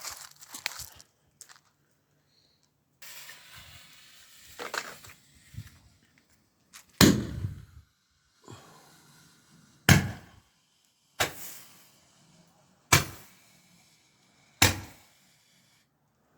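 A Star Blizzard Roman candle firing. A few seconds of hissing come first, then five sharp shots of stars about one and a half to three seconds apart, each with a short fading tail.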